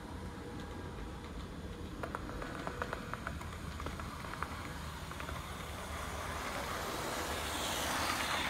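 HO-scale brass model of a Pennsylvania Railroad R-1 electric locomotive running along the track toward the microphone and passing close by with its coach: a running whir with scattered clicks of the wheels on the rails, growing louder to a peak near the end as it goes by.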